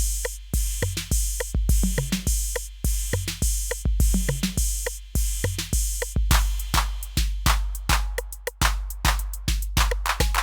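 Roland TR-8 drum machine playing an unprocessed factory pattern on its 808 kit: long, booming kicks on a steady beat with snare and hi-hats. About six seconds in, the hi-hat pattern changes from a sustained hiss to quick, separate ticks.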